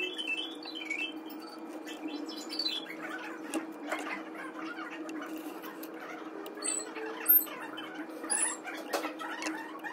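Copper magnet wire rustling, crackling and ticking as it is handled and pushed into the stator of a three-phase electric motor during rewinding, with a louder click about seven seconds in. A faint steady hum runs underneath.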